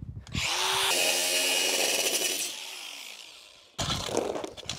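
Cordless DeWalt angle grinder spinning up and cutting plastic tile tape for about two seconds, then winding down. Near the end, a shovel scrapes and digs into loose stones and soil.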